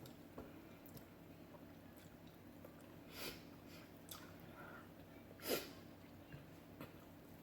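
Faint eating sounds of a person chewing food, with small mouth clicks and two short, noisy breaths through the nose about three and five and a half seconds in.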